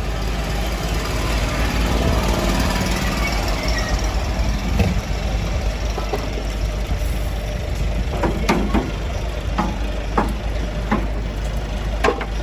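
A steady low, engine-like rumble, with a few sharp clicks and knocks in the second half.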